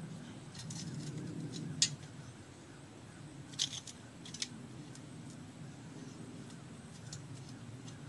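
Steel privy probe being pushed into frozen ground, giving a few sharp metallic clicks and scrapes, the loudest about two seconds in. The probe is stopping at the frost layer and can't go deep.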